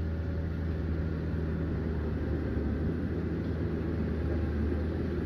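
Liebherr 744 crawler dozer's diesel engine running steadily, a constant low drone with no change in pitch.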